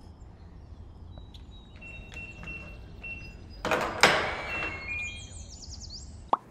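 Electronic keypad door lock beeping as a code is punched in, with short high beeps, then a loud clunk about four seconds in and a quick run of high chirps near the end.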